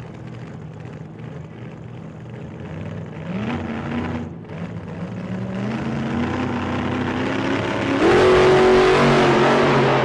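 Car engine accelerating hard. Its pitch climbs in steps with brief drops between, and it grows steadily louder, then much louder from about eight seconds in.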